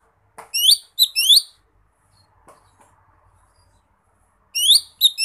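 Lesser green leafbird (cucak ijo mini) calling to rivals: a short phrase of quick, rising whistled notes about half a second in, and another near the end.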